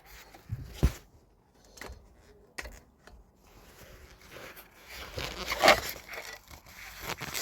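Hands working the plastic wiring connectors and clips of a steering wheel airbag: a few sharp clicks and knocks in the first seconds, then a longer stretch of scraping and rustling handling that is loudest a little past halfway.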